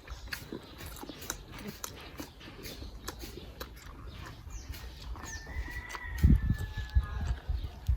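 A rooster crows once, a single held call of about two seconds starting about five seconds in, over close-up crunching and chewing of crispy fried pork skin. Heavy low thumps come near the end.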